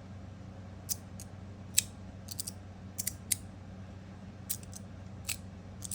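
Stainless steel magnetic fidget slider clicking as its plates are slid and snapped together by the magnets: about a dozen sharp clicks at irregular intervals, some in quick pairs and triples.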